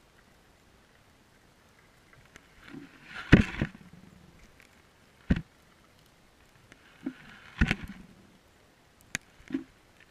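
Water sounds picked up by an underwater camera: several sharp knocks and thuds, with short rushes of hissing water noise around the loudest knock about a third of the way in and again past the middle.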